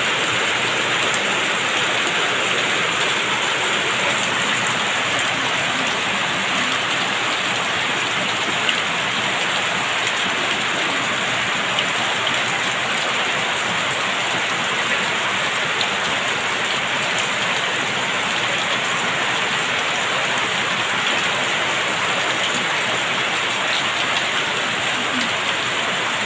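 Heavy rain pouring down steadily: a dense, even hiss of drops that does not let up.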